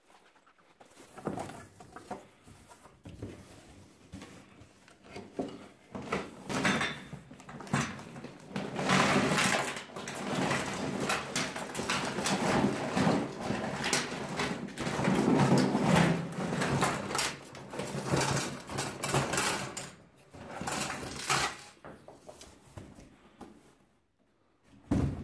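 A cardboard box being handled and a heap of plastic cooling fans with their wires tipped onto a wooden tabletop and rummaged through. The dense clattering and rustling builds after a few scattered knocks, is loudest in the middle, and dies away near the end.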